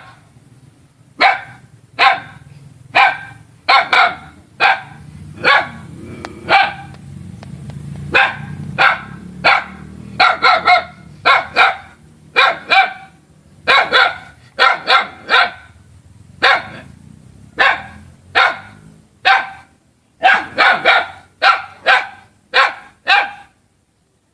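Dog barking over and over in short sharp barks, about one a second, sometimes in quick runs of two or three, over a faint low rumble.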